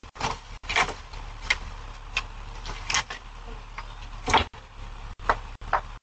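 Irregular short knocks and scuffs, about one every half second to second, from a person handling items at an SUV's open rear and walking on concrete, heard through a doorbell camera's microphone over a low steady hum.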